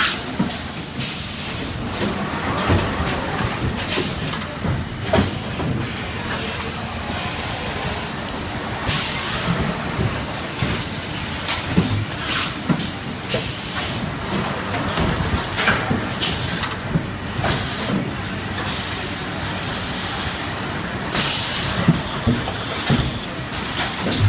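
Automatic high-frequency PVC welding machine cycling: a steady machine din with repeated knocks and clanks from the press and table, and several hissing releases of compressed air, the longest about halfway through and again near the end.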